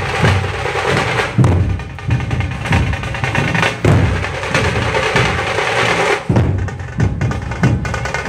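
Drum-led intro music with a steady bass drum beat, a little under a second between beats.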